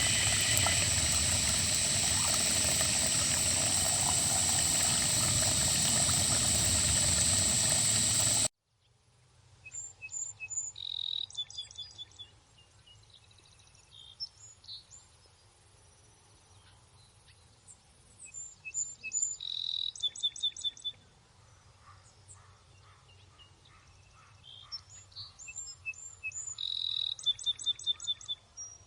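A loud, steady, dense rasping drone that cuts off suddenly about eight seconds in, followed by wild birds calling in three bouts of quick, high, repeated chirps.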